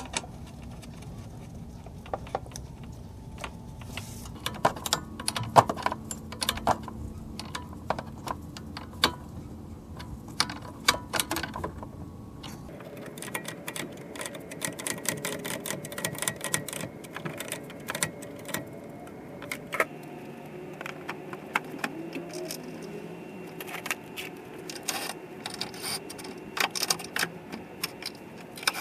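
Hand tools clicking and clinking on metal as radiator and fan shroud bolts are fastened, in quick irregular ratchet-like clicks. A steady hum joins about halfway.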